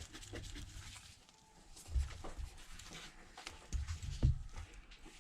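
Scattered small clicks and taps of handling tools and phone parts on a workbench, with a few dull low thumps about two seconds in and again around four seconds in.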